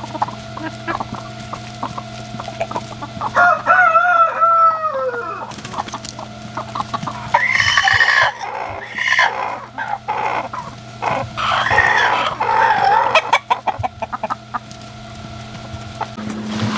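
A rooster crowing three times, each a long call of about two seconds, a few seconds apart; the first drops in pitch at its end. Between the crows, chickens peck at corn cobs on the ground with light taps.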